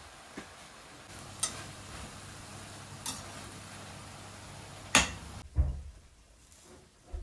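Sliced cabbage and peppers sizzling in a stainless steel pan while stirred, the metal utensil clinking against the pan a few times, loudest about five seconds in. Then the sizzle drops away and a dull knock follows.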